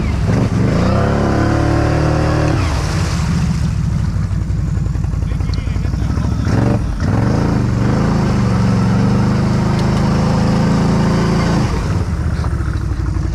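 2022 Can-Am Outlander 650 XMR's V-twin engine, tuned and fitted with an RJWC Krossflow exhaust, running under throttle. It revs up over the first couple of seconds, drops off sharply twice, holds a steady pitch for a few seconds, then eases off near the end.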